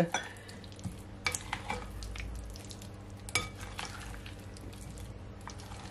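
A spoon folding chunks of boiled potato, mixed vegetables and mayonnaise in a glass bowl: soft, wet stirring with scattered light clicks of the spoon against the bowl, two of them sharper, about a second in and again past three seconds.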